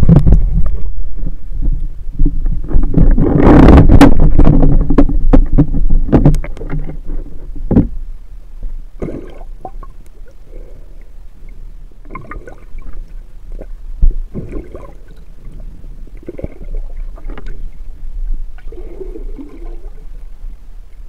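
Loud splashing and water rushing over a speargun-mounted camera as it goes from a canoe into the water. It then turns much quieter, into muffled underwater sound with scattered knocks and soft bubbly noises, one sharp knock about two-thirds of the way through.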